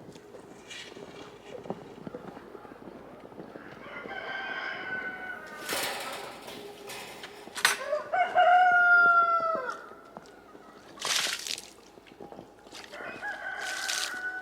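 A rooster crowing once, a long call of about two seconds that rises and then falls, with quieter hen clucking before it. There are also a few short swishing noises.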